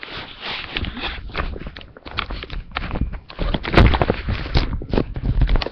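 Close handling noise: rustling, clicks and knocks against the microphone with low thuds, the loudest just before four seconds in, as the recording device is moved about.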